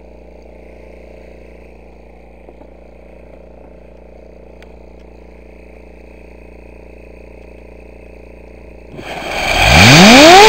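A steady low hum, then about nine seconds in a loud rushing blast as a gasoline-air charge burns and jets out of the mouth of a gas cylinder. Through the blast, a whine climbs steeply in pitch as the unpowered electric fan in front of the cylinder is spun up by the hot gases like a turbine.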